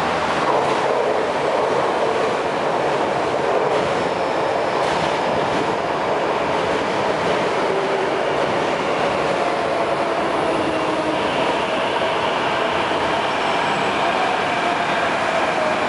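MTR Kwun Tong Line C-Train electric metro train pulling into the platform and slowing, with a steady rumble of wheels on rails. In the second half a motor whine falls in pitch as the train brakes.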